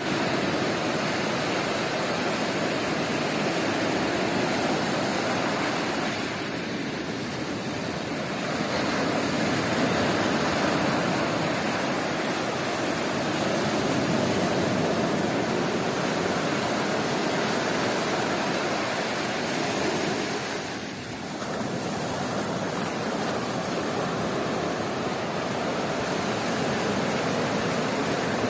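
Sea waves breaking and washing on a beach: a steady, continuous surf noise that eases briefly about six seconds in and again around twenty-one seconds.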